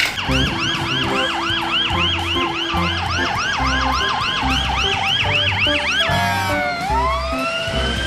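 Fire truck siren in a fast yelp of about four rising-and-falling whoops a second. About six seconds in it switches to a slow wail climbing in pitch. Background music with a steady low beat runs underneath.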